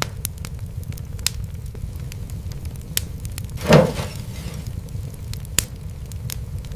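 Fire in a fireplace crackling, with scattered sharp pops over a steady low rumble. One louder burst comes a little after the middle.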